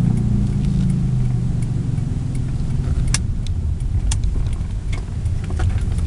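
An Acura TSX on the move: a steady low rumble from wheels and road, with a humming drone that fades over the first two seconds. In the second half, sharp clicks come about once a second. The owner asks whether the noise is a bad wheel bearing.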